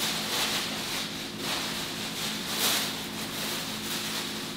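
Plastic grocery bag rustling and grocery items being handled, in a few soft scraping swells, over a faint steady hum.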